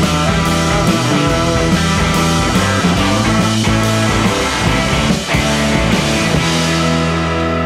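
Rock band playing with electric guitar, bass and drums; about six and a half seconds in the drums stop and a held chord rings on.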